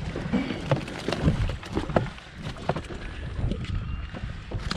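Sea water sloshing and wind buffeting the microphone, with scattered knocks and clicks from handling.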